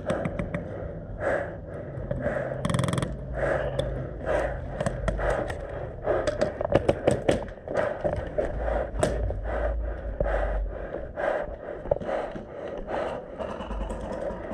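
An airsoft player's breathing and movement noise, with scattered sharp clicks and a dense run of them about six to seven seconds in.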